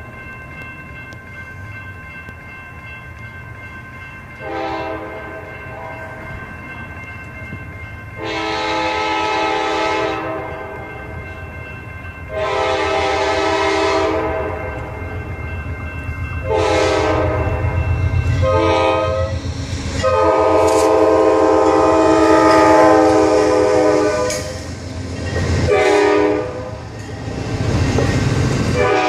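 An approaching passenger train sounds its horn in a series of long and short blasts, louder and more frequent in the second half. The rumble of the bilevel cars' wheels on the rails grows as the train passes close by near the end. A faint steady high tone sounds under the first half.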